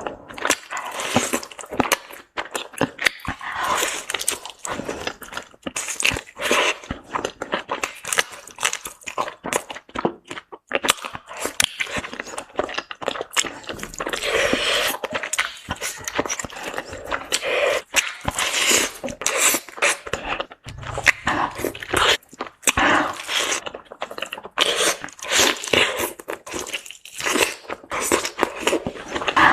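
Close-miked eating: a person biting and chewing crunchy food, with a dense, irregular run of crunches and mouth clicks.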